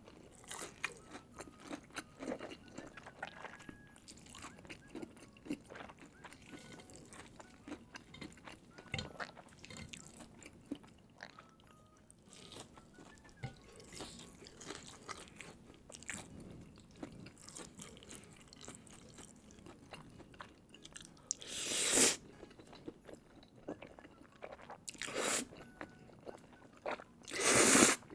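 Close-miked eating sounds: steady chewing with many small wet mouth clicks, and two louder bites about two-thirds of the way through and near the end.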